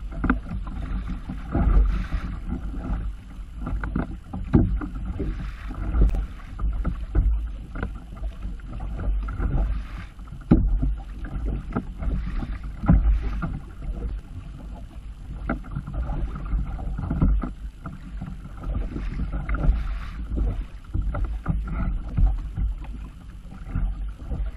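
Kayak paddle strokes, the double blades splashing into the sea on alternate sides about every second or two, over a steady low rumble of wind on the microphone.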